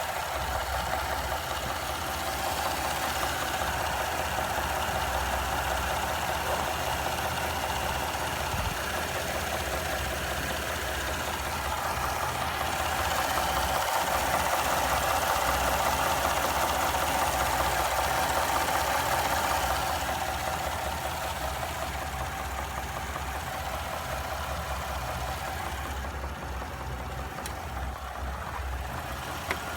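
2017 Ford 3.5 EcoBoost twin-turbo V6 engine running with a knocking sound, the fault the owner is recording. The running sound is steady, a little louder in the middle and easing off toward the end.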